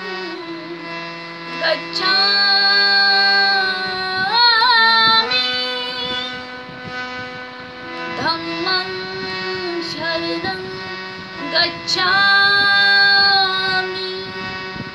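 A woman singing a Buddhist devotional song (Buddha vandana) solo, holding long notes with a wavering ornament about four and a half seconds in, over a steady backing of held instrumental notes.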